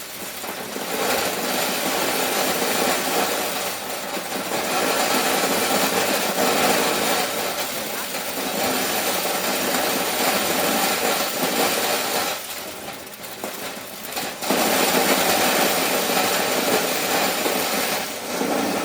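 Motorised corn-shelling machine running steadily, its noise dropping for about two seconds in the middle before picking up again.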